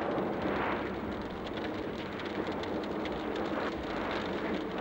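Steady rushing roar with a dense crackle running through it, from an erupting volcanic fissure's lava fountain.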